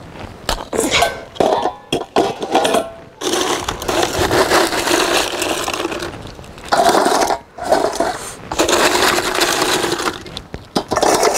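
Thin sheets of ice being cracked by hand and crunching, clinking and scraping against a metal bucket and basin, in several bouts of a second or two. The ice is being packed around a steel bowl to chill an ice-and-salt ice cream freezer.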